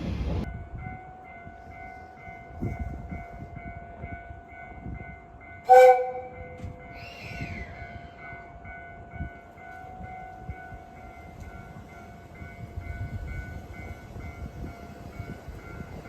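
Electric train or tram running with a steady whine of several high tones, one of them pulsing. About six seconds in, a single short, loud horn note sounds, followed by a high tone that falls in pitch.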